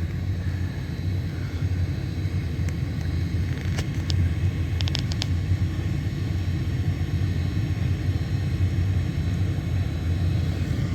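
Gas furnace running with a steady low rumble. A few light clicks come about four to five seconds in.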